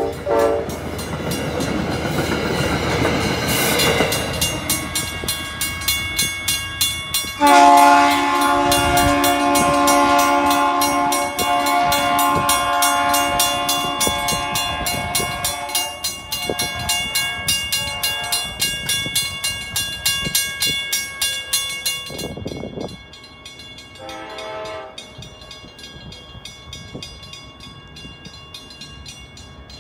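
Diesel locomotive air horn on the rear of a receding CTrail Hartford Line push-pull train, first with the train's rolling noise and then sounding one long multi-tone chord for several seconds that fades as it moves off. A short, faint horn toot follows near the end.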